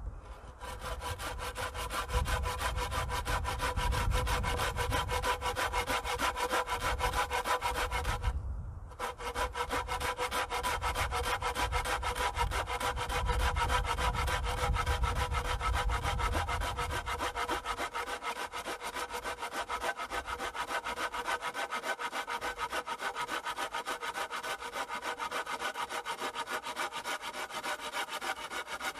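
Hand saw cutting through a wooden pole in fast, steady back-and-forth strokes, with a short pause about eight seconds in.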